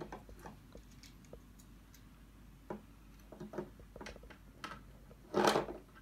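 Quiet indoor room tone with scattered light clicks and taps, and one louder rustling knock near the end: handling noise from a phone being moved and panned against a window.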